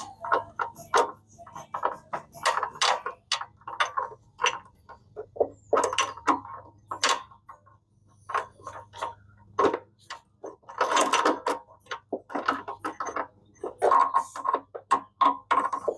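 Irregular metallic clicks, clinks and rattles of hand work on a McLane reel mower's drive, tightening a sprocket and handling its roller chain, over a low steady hum.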